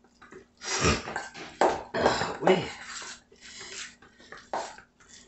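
Spoon stirring a thick cream-cheese, shredded-cheese and chopped-vegetable filling in a stainless steel bowl: a run of uneven scraping, squishing strokes against the bowl, starting about a second in and stopping near the end.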